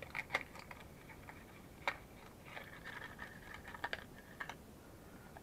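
Faint clicks and light taps from handling a new spark plug and its small cardboard box as it is taken out. The sharpest click comes about two seconds in, with a few more close together near four seconds.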